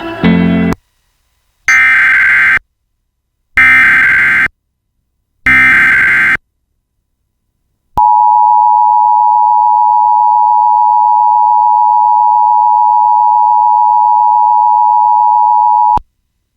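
Emergency Alert System tones announcing a shelter-in-place warning: three one-second bursts of SAME digital header data about two seconds apart, then after a short gap the steady two-tone EAS attention signal for about eight seconds, which cuts off abruptly.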